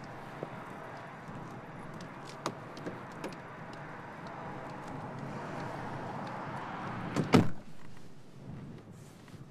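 Steady outdoor noise with a few light clicks, then a door slams shut loudly a little after seven seconds in, and the background noise drops away.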